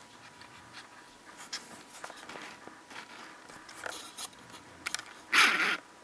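Light rustling and small clicks of a skein of angora yarn with a paper label band being handled and turned, with one louder rustle near the end.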